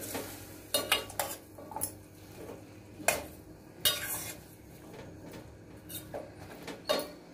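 Steel ladle stirring bottle gourd pieces in a stainless steel pot, clinking and scraping against the pot's sides in a series of irregular knocks.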